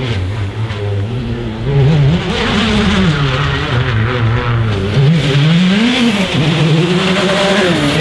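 Rally car engine at full throttle, its pitch climbing and dropping repeatedly through gear changes and lifts, with a sharp drop about six seconds in. It gets louder about two seconds in.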